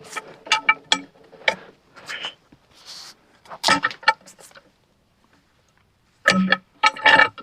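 A run of short metal clanks and knocks with a ringing tone, like steel parts of a sawmill and log-handling gear striking one another. They go quiet for about a second and a half midway, then start again near the end.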